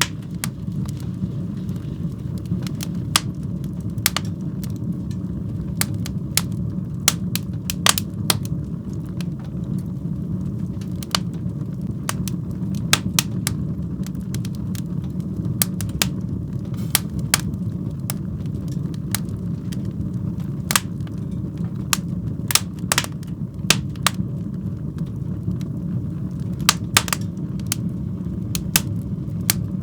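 Fire burning in a fireplace: a steady low rumble of the flames with frequent, irregular sharp crackles and pops.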